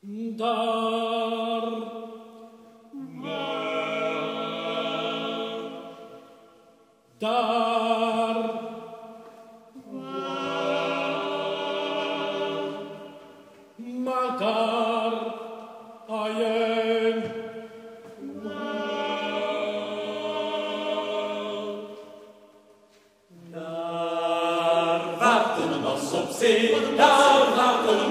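Men's choir singing a cappella in sustained chords, in phrases a few seconds long with short breaths between them. Near the end the singing becomes fuller, louder and busier.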